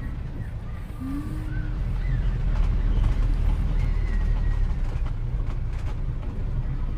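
Street ambience from the footage's added soundtrack: a steady low rumble of traffic that grows louder about a second in, with a few short faint pitched sounds over it.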